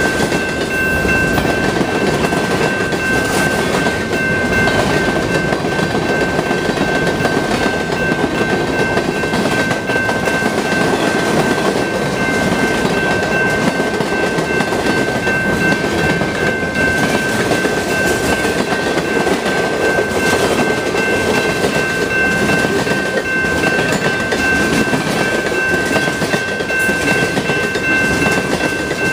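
Freight cars of a CN mixed freight train rolling past close by: a steady rumble with the clickety-clack of wheels over rail joints. A steady high-pitched tone runs throughout.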